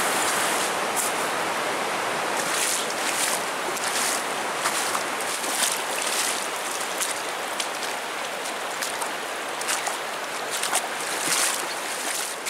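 Fast, shallow creek water rushing steadily over gravel, with short splashes now and then.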